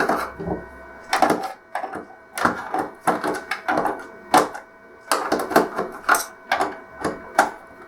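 Screwdriver turning screws out of a TV's plastic back cover: a run of short, irregular clicks and scrapes, one for each twist of the driver.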